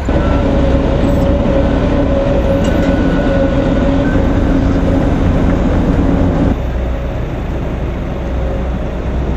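Heavy diesel earthmoving machinery running steadily: a low engine rumble with a steady hum on top. The hum stops about six and a half seconds in, leaving the rumble.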